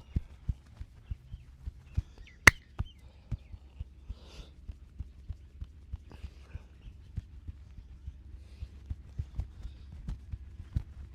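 Hand massage: dull, rhythmic thumps of hands tapping and patting on the body, about two or three a second, with one sharp crack about two and a half seconds in.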